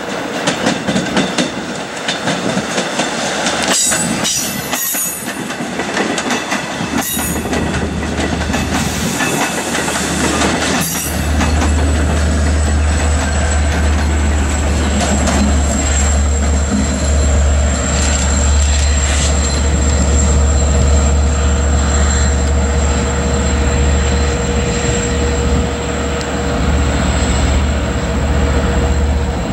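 LIRR diesel push-pull train of bilevel coaches passing close by, its wheels clattering over the track. From about 11 s in, the diesel locomotive pushing at the rear goes by with a deep steady engine drone and a steady high-pitched whine.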